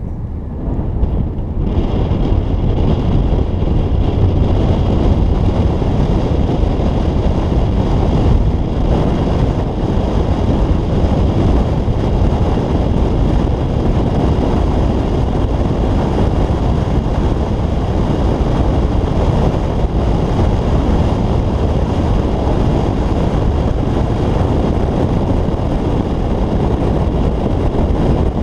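Wind buffeting a roof-mounted camera's microphone, mixed with the tyre and road noise of a Toyota Tundra pickup driving on a paved road. The noise swells about a second and a half in, then holds steady.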